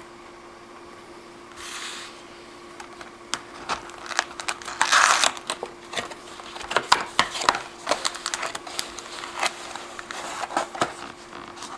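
Handling noise from a trading-card hobby box and its packs: scattered clicks and taps with a brief crinkle about five seconds in, over a steady faint hum.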